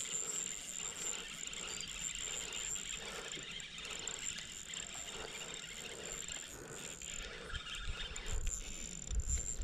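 Spinning fishing reel being cranked with a rhythmic mechanical whir while a hooked fish is played, which the angler takes for a jack crevalle. A steady high-pitched whine runs underneath and drops out about seven seconds in.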